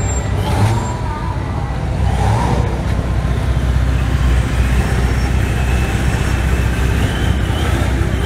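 Steady low rumble of vehicle traffic and engines on the street, with faint voices in the background.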